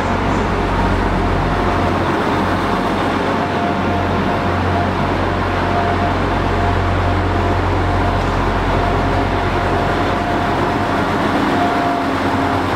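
Great Western Railway intercity train moving slowly along a station platform: a steady low hum and rumble, with a thin steady whine above it.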